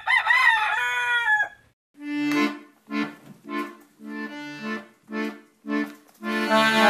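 A rooster crows once, a call of about a second and a half. Then a piano accordion plays short detached chords, about six of them, and near the end goes over into continuous playing.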